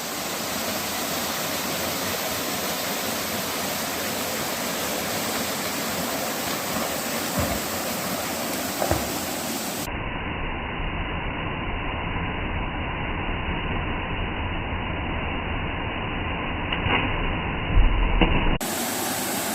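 Steady rushing of water falling at a waterfall. About halfway through the sound turns duller and deeper, and there are a few knocks near the end.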